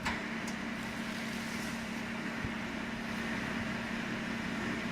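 A 150-ton welding rotator's electric drive running, turning its rollers: a steady machine hum with one constant low tone.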